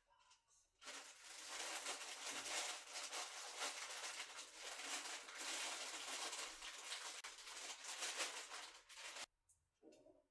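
Clear plastic bag crinkling and rustling as cheese-topped ciabatta rolls are pulled out of it by hand. It starts suddenly about a second in and stops suddenly about a second before the end.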